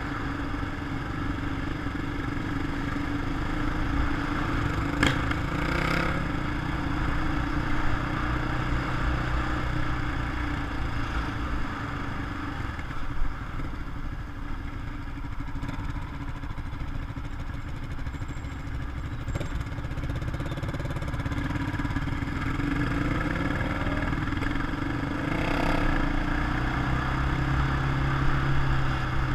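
Quad bike engine running at speed, with wind and road noise; the engine note climbs as it accelerates late on. A few brief knocks or rattles cut through.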